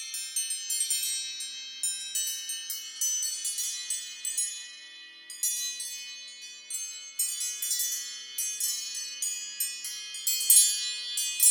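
An iPhone ringtone of chiming bell tones: many high-pitched struck notes in quick, overlapping succession, each ringing on, like wind chimes.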